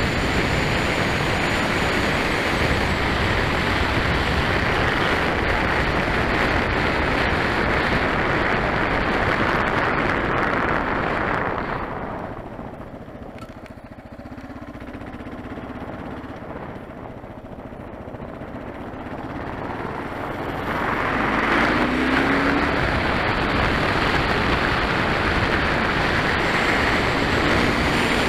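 Wind rushing over the microphone and a Kawasaki KLR650's single-cylinder engine while riding. Midway the noise drops away for several seconds as the bike slows, then builds again with the engine pitch rising as it accelerates.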